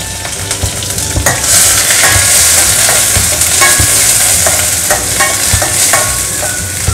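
Shallots, dried red chillies and curry leaves sizzling in hot coconut oil in a stainless steel pan, with a metal spoon scraping and clicking against the pan as they are stirred. The sizzle gets louder about a second in.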